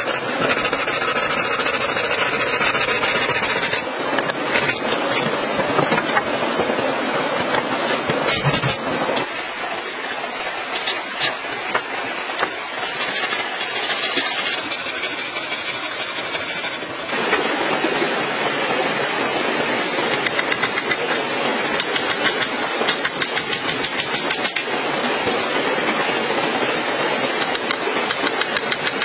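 Steady running water of a stream, with the sharp knocks of a machete chopping and trimming bamboo poles, the strikes coming quick and close together in the second half.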